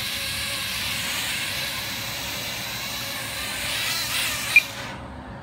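Blade Nano QX micro quadcopter's motors and small propellers whirring steadily at speed as it flies just above a tabletop. A short sharp tick comes about four and a half seconds in.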